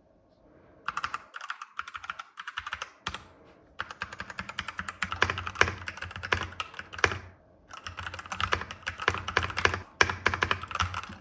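Typing on a Vissles V84 75% mechanical keyboard with Outemu Brown switches: fast runs of clacking keystrokes in three stretches, with two short pauses between them.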